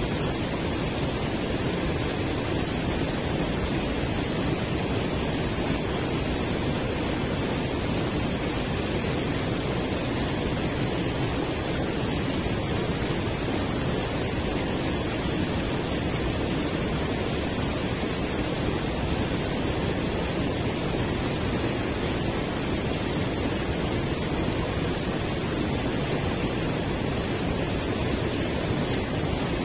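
Steady rush of river water pouring over a concrete weir.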